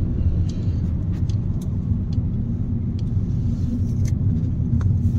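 Steady low rumble of a car driving, heard from inside the cabin: engine and road noise, with a few faint scattered clicks.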